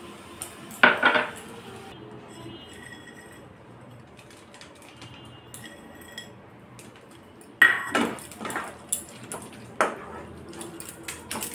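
Wooden spoon knocking and scraping against a nonstick frying pan while stirring a thick mixture. There are a few sharp knocks about a second in, then a quiet stretch, then a run of knocks from about eight seconds on.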